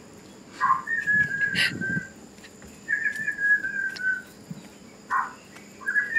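Whistled notes: two long, near-steady tones that sag slightly at the end, the first about a second in and the second about three seconds in, with short lower notes between them. A faint, steady high-pitched hum runs underneath.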